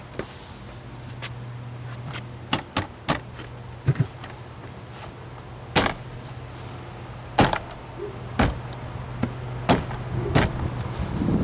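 A series of sharp, irregular clicks and knocks as plastic and metal parts are handled and snapped into place on a car door during reassembly, over a low steady hum.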